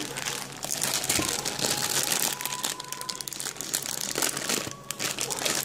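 A thin clear plastic bag full of powder crinkling as it is squeezed and handled, with a brief pause near the end.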